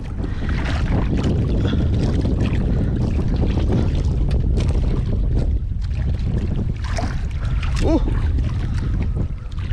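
Wind buffeting the microphone over water sloshing against the side of a small boat, a steady low rumble with scattered crackles as the line is hauled in by hand. A brief voiced exclamation comes near the end.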